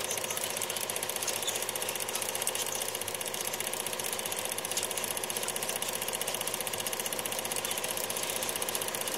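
Film projector running: a steady, rapid mechanical clatter with a hiss.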